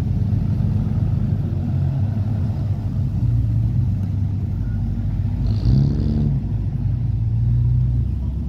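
Ford Falcon sedans driving past one after another at low speed, their engines rumbling steadily. One engine revs briefly, rising in pitch, about five and a half seconds in.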